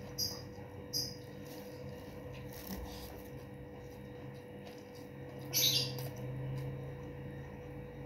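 Close-miked eating sounds from a person chewing, with short, crisp mouth noises: two near the start and a louder one a little past the middle. A steady low hum runs underneath.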